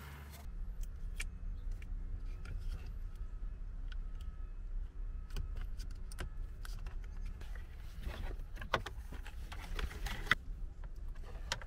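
Hands working a cable through a plastic dashboard trim panel: scattered light clicks and rattles of plastic and wire, busier near the end, over a steady low rumble.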